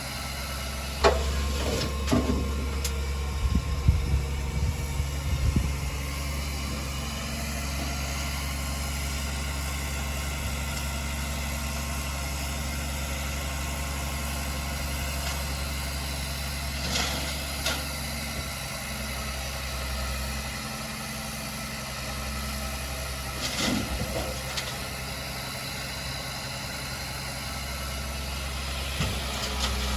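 Heavy diesel earthmoving machine's engine running steadily at low revs, with a cluster of clanks and knocks in the first few seconds and a few more later.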